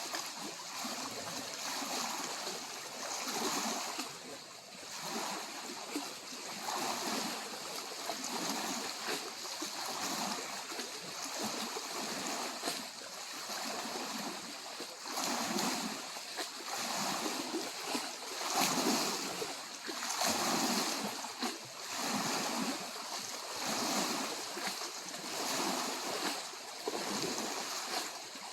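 Small lake waves lapping and breaking on the shore of Lake Superior, a steady wash of water that swells and eases every second or two.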